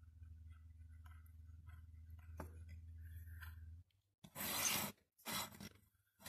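A low steady hum with faint small clicks cuts off abruptly about four seconds in. Two short, loud bursts of rustling, scraping noise follow.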